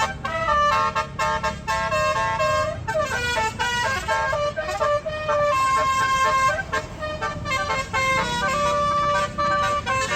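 Indonesian tour bus's basuri musical air horn (telolet horn) playing a tune: a string of held notes stepping up and down in pitch, over a low rumble.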